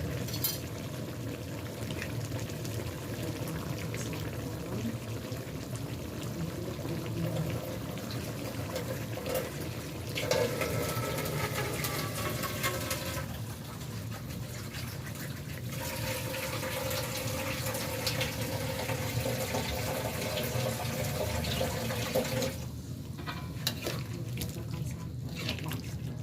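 Kitchen tap running water steadily, the flow changing a few times, with the running stopping about 22 seconds in.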